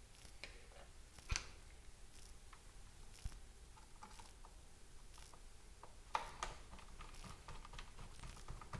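Faint small clicks and ticks of a screwdriver and a tiny screw being worked back into a laptop hard-drive caddy, with a sharper click about a second in and a group of clicks around six seconds in.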